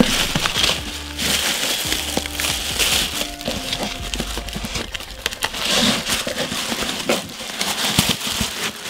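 Thin plastic mailing bag crinkling and crackling as it is torn and pulled off a cardboard box, over background music.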